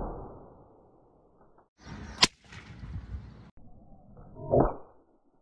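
Homemade bolt-and-nut cracker packed with match heads, swung on a stick against a hard surface and going off. One bang dies away at the start, a sharp crack comes about two seconds in, and another bang comes near the end.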